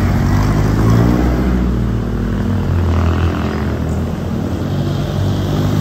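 Street traffic, with a motor vehicle engine running close by as a steady low hum.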